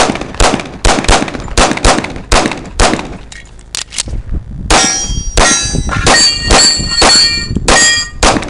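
Rapid pistol fire from a 1911 in .45 ACP, several shots a second. From about halfway in, the hits on steel targets ring out with clear metallic tones after each shot.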